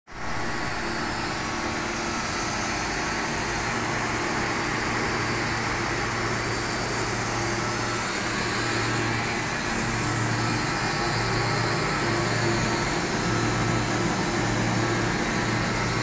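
Pressure washer running and spraying a jet of water onto an air-conditioner condenser unit: a steady motor hum under the hiss of the spray.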